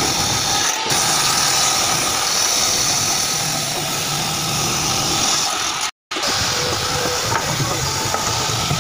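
Bench table saw driven by an electric motor, running steadily while ripping a rough firewood log into strips. The sound cuts out for a moment about six seconds in.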